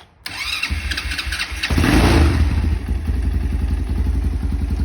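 Grom-clone minibike's single-cylinder four-stroke engine started on choke: the starter cranks for about a second and a half, the engine catches, revs briefly and settles into a steady, thumpy idle through an exhaust can gutted of its baffle and catalytic insert but still packed with fiberglass.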